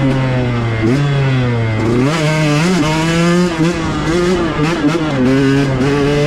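2021 KTM 125XC's 125 cc single-cylinder two-stroke engine under way, revving up and dropping back several times as the bike is ridden and shifted. The engine runs on race gas with a high-compression head.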